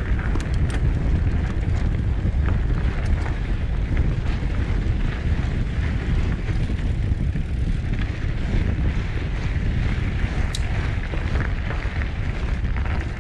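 Wind rushing over the microphone of a bike-mounted camera as a Trek Roscoe 8 hardtail mountain bike rolls over a dirt and gravel track, a steady low rumble with scattered clicks and rattles.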